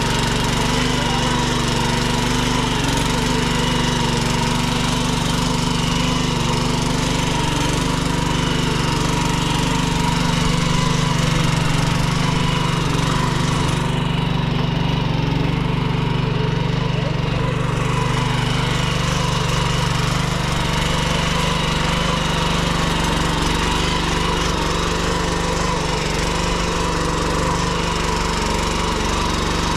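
Walk-behind power tiller's small engine running steadily under load, its rotary tines churning through soil. It makes a constant drone with a steady whine.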